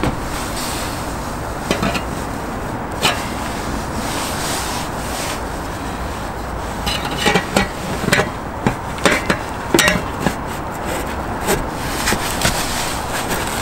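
Stainless steel chimney pipe and cap of a Dickinson Newport solid fuel heater being slid and pressed onto the deck fitting: metal rubbing and scraping, with a run of sharp clicks and knocks in the second half, over a steady background rumble.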